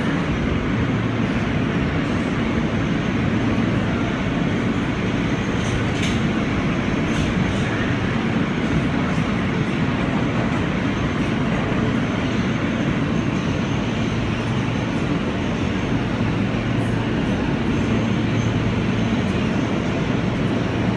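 A New York City Subway R160 train running steadily: a continuous rumble of wheels and motors with a low hum, and a few faint clicks about six seconds in.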